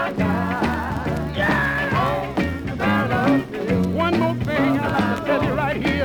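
Gospel soul song playing from a 45 rpm record: a bass line and drums under a wavering, vibrato-laden lead line between sung verses.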